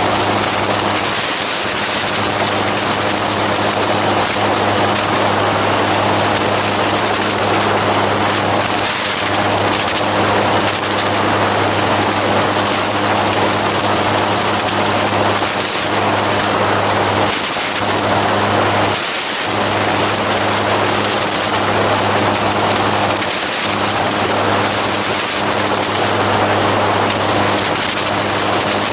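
Gyroplane in cruising flight: its engine and pusher propeller keep up a steady drone under a constant rushing noise of air.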